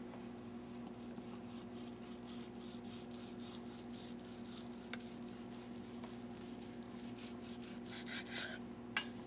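Knife sawing back and forth through a piece of cooked meat on a wooden cutting board: faint rhythmic scraping strokes, with a sharp click about five seconds in and another near the end. A steady low hum sits underneath.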